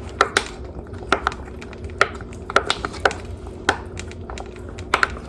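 Silicone pop-it fidget toy being pressed: about ten short, sharp pops at irregular spacing as the bubbles are pushed through.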